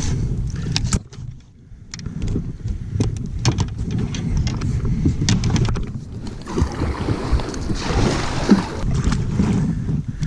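Wind rumbling on the microphone out on a river kayak, with scattered clicks and knocks, and a rushing hiss for a second or so about seven seconds in.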